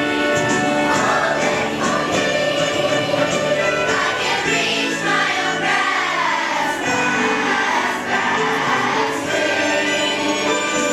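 A vocal group singing in harmony, several voices holding notes together.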